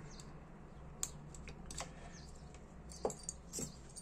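A few small, sharp metal clicks of a thin pick working inside a Dupont lighter's metal body at its stuck gasket, scattered about a second apart.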